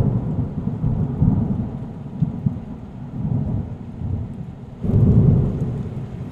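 Thunder rumbling, swelling again about five seconds in.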